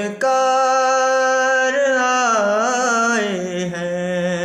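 A man singing a naat unaccompanied. After a quick breath he holds one long note, with a wavering ornament in the middle, and it trails off near the end.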